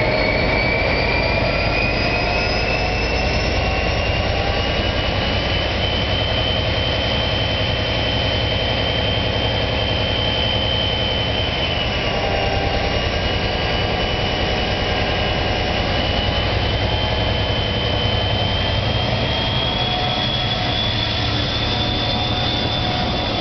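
Class 57 diesel locomotive's EMD two-stroke engine working under load as it pulls slowly away at the head of a convoy of locomotives. A deep steady engine drone runs under a high turbocharger whine that climbs in pitch over the first few seconds, then holds, dipping slightly midway and rising again near the end.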